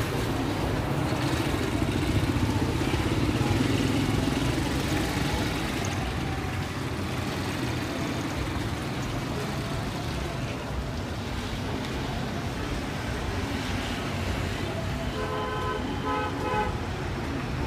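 Street traffic noise: a steady mix of passing engines and tyres, a little louder for the first few seconds, with a vehicle horn tooting several short times near the end.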